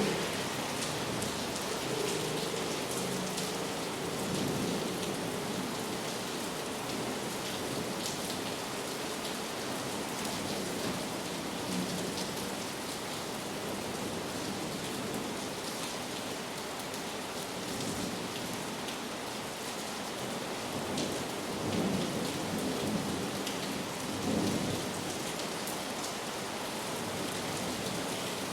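Heavy rain pouring steadily with fine pattering drops and the low rumble of distant thunder, swelling twice in the last third.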